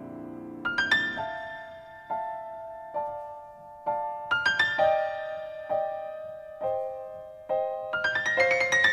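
Solo piano music: a held chord dies away, then gentle rising arpeggios and single notes about once a second.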